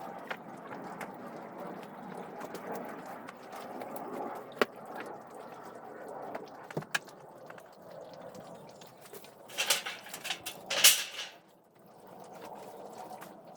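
Hand construction work: scattered knocks and clicks over a steady low background, with two loud scraping noises about ten seconds in.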